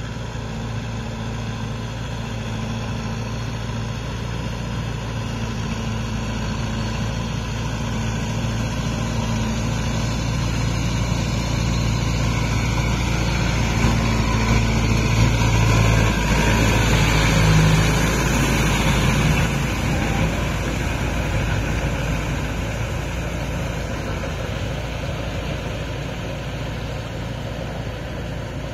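Kubota MU5502 4WD tractor's four-cylinder diesel engine running steadily as it pulls a rotavator through a flooded paddy, with water and mud churning. It grows louder as the tractor passes close by, about halfway through, then fades as it moves away.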